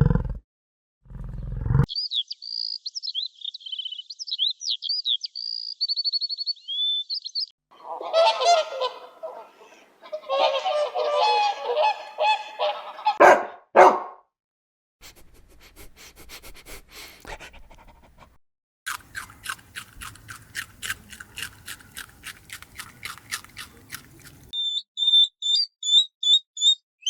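A run of separate bird sound clips: high, quick chirping, then a few seconds of honking waterfowl calls, then two sharp knocks and a long series of evenly spaced ticks, with high chirps again near the end.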